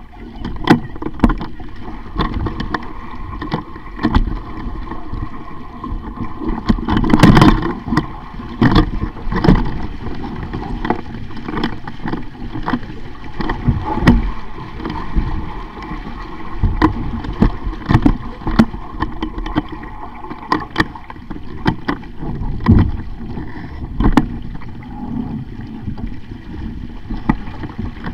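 Sailing dinghy underway: water rushing along the hull and wind buffeting the microphone, with frequent short knocks and clunks from the boat. A louder burst comes about a quarter of the way in.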